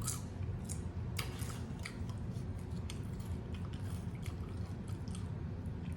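Close-up mouth sounds of someone chewing Rotel nachos: irregular wet clicks and small crunches, several a second, over a low steady hum.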